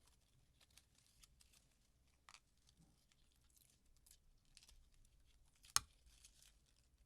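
Faint scattered small clicks and rustles of keyboard parts being handled during assembly, with one sharp click near the end.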